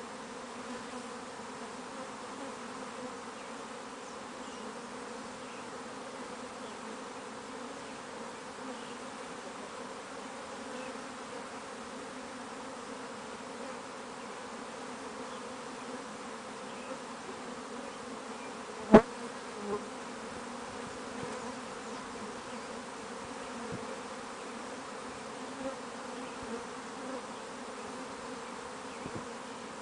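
A swarm of honeybees (Apis mellifera) buzzing in a dense, steady hum as it flies around and moves into a wooden hive box. A single sharp click cuts through about two-thirds of the way in, with a few fainter ticks near the end.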